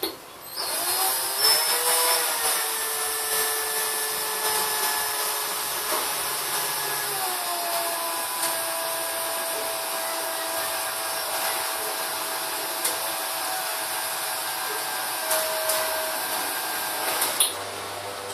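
Small electric drill running with a thin bit in a car headlamp housing, drilling out a rusted screw. Its whine spins up about half a second in, steps down in pitch about seven seconds in, and stops shortly before the end.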